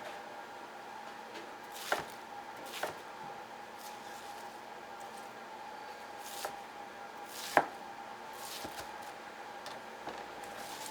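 Kitchen prep work: a few separate sharp knocks and clatters, the loudest about seven and a half seconds in, over a steady hum.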